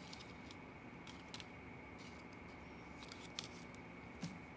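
A few faint, brief crisp clicks and rustles of a folded US dollar bill being pressed and handled on a tabletop, over a steady low background hum.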